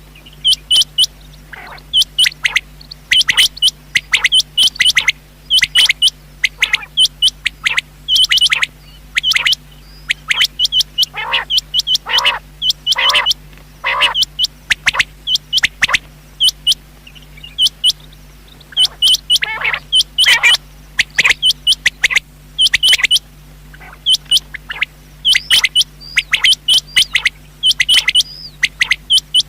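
Rain quail calling: short, sharp high notes, often in quick pairs, repeated over and over, with a few runs of lower notes in between. A faint steady hum sits underneath.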